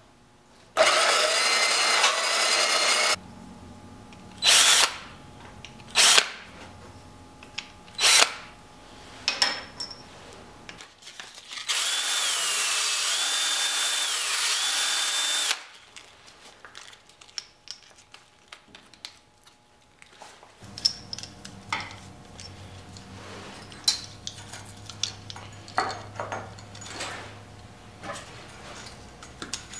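Power tools run in bursts. A portable bandsaw cuts copper rod for about two seconds, followed by a few short bursts. A cordless drill then spins a copper rod against an abrasive for about four seconds, its whine dipping under load. Near the end comes a low hum with light clicks as the copper pieces are handled.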